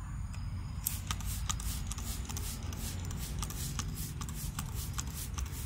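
Leaves and twigs rustling and crackling as they brush against the phone, a rapid irregular run of small crackles starting about a second in, over a low rumble of handling and wind.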